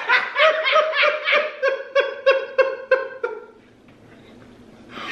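A person laughing hard: a run of high-pitched 'ha-ha-ha' pulses, about three a second, that fades out after about three seconds.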